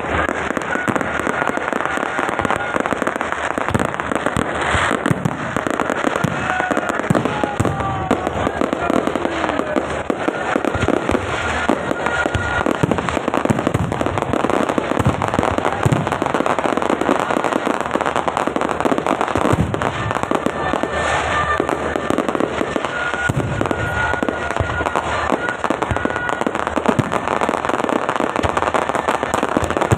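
Fireworks and firecrackers going off continuously: dense crackling and popping with many sharp bangs, and short high whistles now and then.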